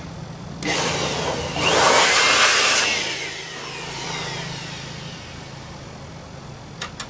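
Electric air blower run in a short burst, a rush of air that swells, peaks and winds down over a few seconds, used to blow dust out of a stripped-down laser printer. Two sharp clicks follow near the end.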